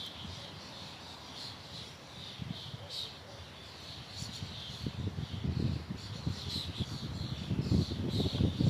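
Small birds chirping in short repeated calls, over gusting wind that comes as a low rumble and grows stronger in the second half.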